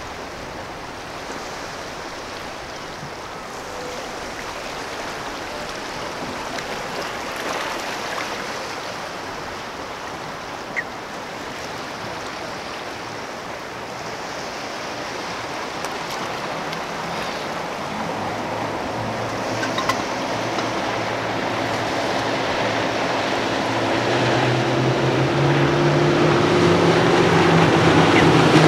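Engines of a center-console boat running through an inlet: a steady engine drone comes in about halfway through and grows steadily louder as the boat approaches, over a constant wash of water and wind.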